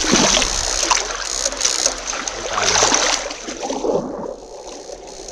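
Shallow river water splashing and sloshing around a person's legs as they wade over stones, louder for the first three seconds and easing off near the end.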